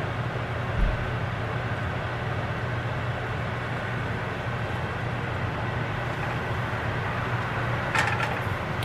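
Kitchen range hood fan running steadily with a low hum, with a small knock about a second in and a brief clatter near the end.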